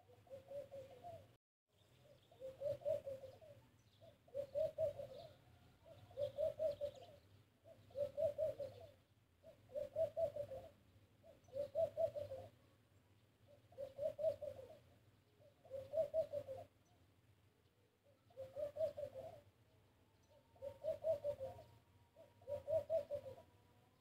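A dove cooing: a low phrase of quick, bubbling pulses repeated about every two seconds, a dozen times over.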